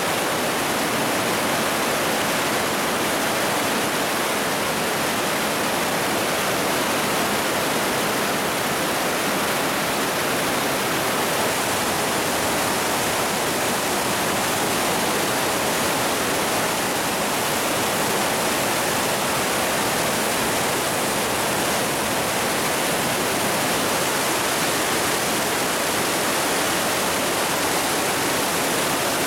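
Torrent of a mountain river and waterfall in a narrow rock gorge, high after a rainstorm: a loud, steady rush of water.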